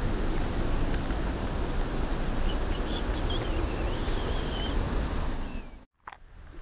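Steady rushing of water pouring over a river weir's spillway gates, a continuous noise with a deep rumble underneath. It cuts off abruptly about six seconds in, leaving a much quieter background.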